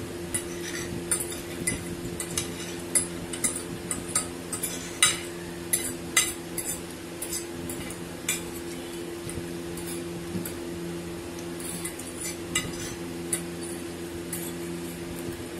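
Metal forks clinking and scraping on plates while eating chow mein, with many sharp clicks in the first half and fewer later, over a steady low hum.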